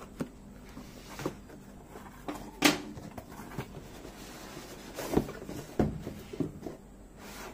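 Cardboard shipping carton being cut open with scissors and handled: scattered snips, scrapes and knocks of cardboard, a sharp knock about two and a half seconds in, and a couple of dull thumps near the end as the boxed projector is pulled out.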